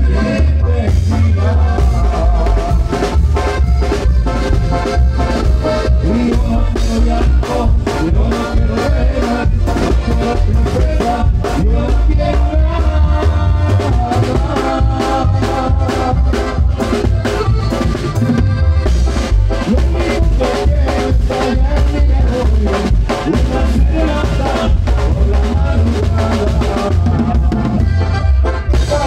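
Tamborazo brass band playing a dance tune live: a heavy bass drum and cymbals keep a steady, driving beat under the horns' melody.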